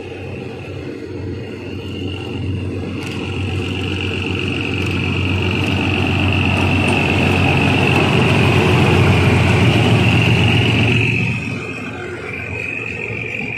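The diesel engine of Thai railway GE locomotive No. 4044, hauling a container freight train, grows louder as the locomotive approaches. It drops off suddenly about eleven seconds in as the locomotive passes, leaving the quieter sound of the container wagons rolling by.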